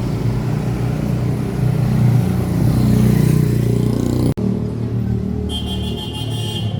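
Motor vehicle engine running close by with a deep, steady rumble; the sound breaks off for an instant about four seconds in. A high-pitched tone rings for about a second near the end.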